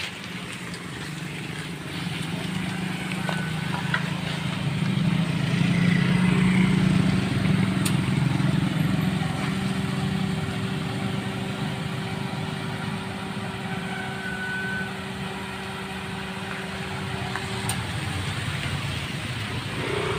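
Motor vehicle engine hum, steady and low, growing louder for a few seconds about five to eight seconds in as a vehicle passes.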